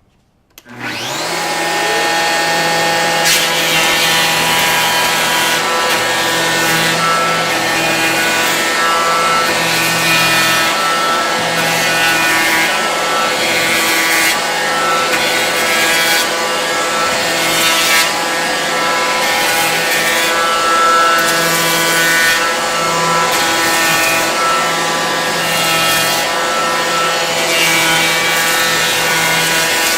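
Festool HL 850 electric hand planer with a Rustic coarse distressing head, spinning up about a second in. It then runs steadily while cutting into a wooden board to give it a distressed texture.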